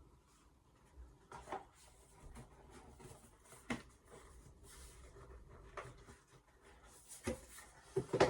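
Light knocks and clicks of objects being handled and set down on a work surface, a few scattered ones with a small cluster near the end, and a brief soft hiss between them.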